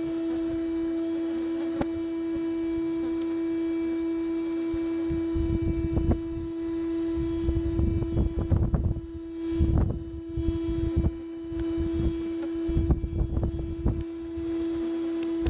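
Bee vacuum running with a steady pitched hum while its hose sucks honey bees off exposed comb. Irregular low rumbles and knocks come and go through the second half.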